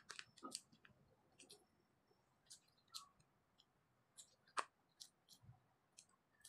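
Faint, irregular clicks and taps of eating with chopsticks, with one sharper click about four and a half seconds in.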